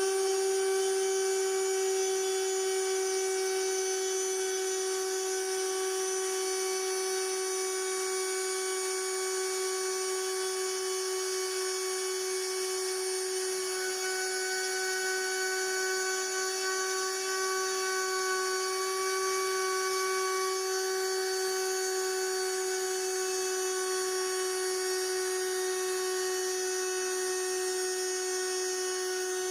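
Homemade Arduino CNC router with a small spindle motor running at speed, giving a steady high-pitched whine as the bit mills a wooden key tag.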